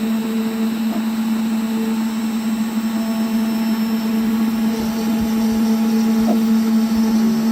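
A 3D-printed desktop CNC router milling wood in shallow 2 mm passes. The spindle runs with a steady hum, while the axis stepper motors add higher whines that start, stop and glide in pitch as the machine moves.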